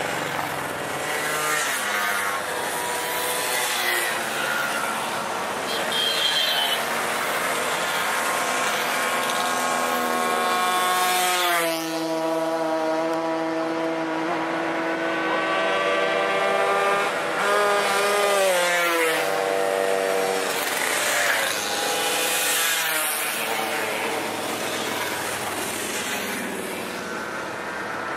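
A procession of old motorcycles and mopeds riding past one after another, their engines overlapping. Engine notes drop in pitch as bikes go by, most clearly about twelve and nineteen seconds in.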